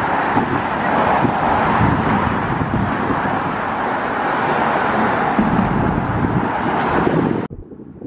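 Steady road-traffic noise with wind buffeting the microphone, cutting off suddenly near the end.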